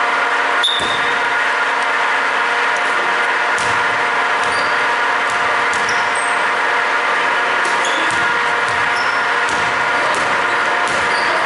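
Basketball play on a hardwood gym floor: scattered sneaker squeaks and ball bounces over a loud, steady hum that runs throughout.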